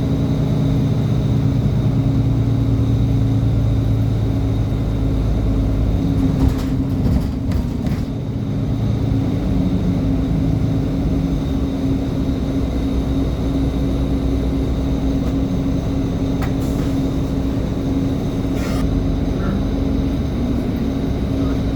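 Transit bus running with a steady low drone; its pitch shifts about six to eight seconds in, then settles again.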